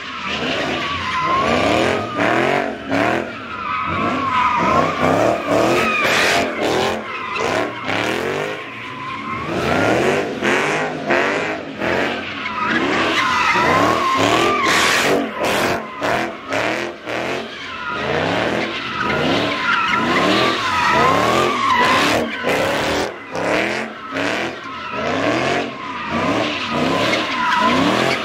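Car drifting and doing donuts: the engine is revved up again and again while the tires squeal in a long, wavering screech.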